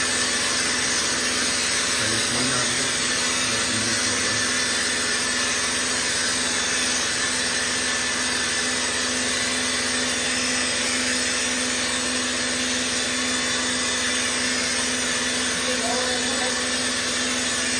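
Dp920 fasarit texture-plaster spraying machine running steadily, a constant motor hum under a strong, even hiss.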